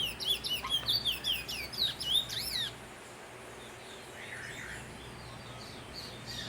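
A caged bullfinch (seed finch) singing a fast run of short, down-slurred whistled notes for the first few seconds, then dropping to faint, scattered notes.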